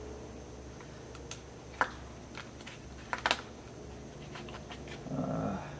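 Scattered light clicks and rustles of wires and capacitors being pushed back into a compressor's electrical housing, over a low steady hum.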